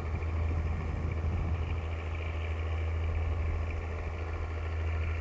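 A vehicle engine running steadily, a constant low hum.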